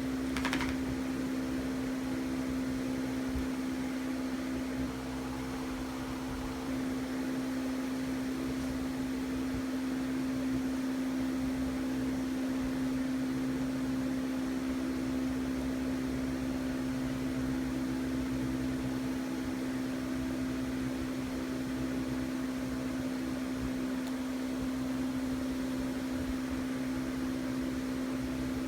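Steady machine hum with one clear low tone, even in level, with no other sound standing out.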